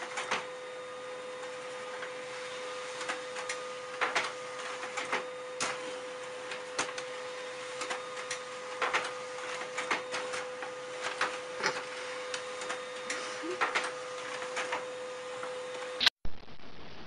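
Small desktop printer running: a steady whine over a hum, broken by irregular clicks and ticks from its mechanism. It cuts off suddenly near the end.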